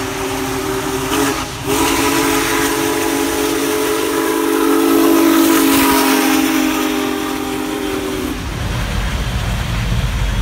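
Union Pacific Big Boy No. 4014 steam locomotive's whistle sounding a chord of several notes: a short blast ending about a second in, then a long blast held until about eight seconds in, over the hiss of the passing engine. After the whistle stops, the low rumble of the passing train.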